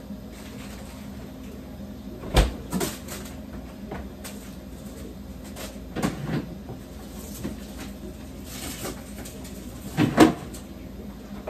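Fridge-freezer door shut with a deep thud about two seconds in, then more knocks and clunks around six and ten seconds in as things are handled at the open refrigerator.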